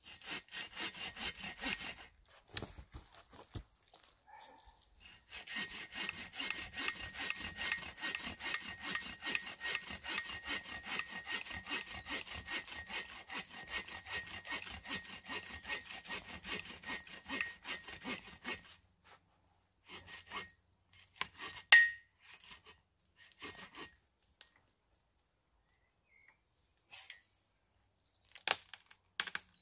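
Folding bow saw cutting through the trunk of a dead standing birch in fast, steady push-pull strokes. A short burst, a pause, then about thirteen seconds of continuous sawing before it stops. A few sharp cracks follow, the loudest about three seconds after the sawing ends.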